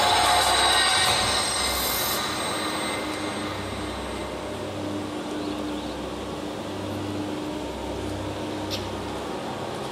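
Projection-mapping show soundtrack: a shrill, metallic screeching sound effect, like train wheels squealing, fades away over the first few seconds, leaving a quieter low drone with a hum that swells and fades.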